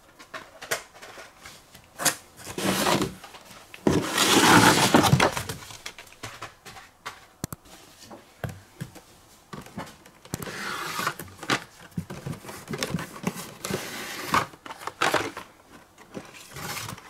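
Cardboard case and blister-carded Hot Wheels cars being handled: irregular rustling, scraping and light knocks. The longest, loudest stretch is about four to five and a half seconds in.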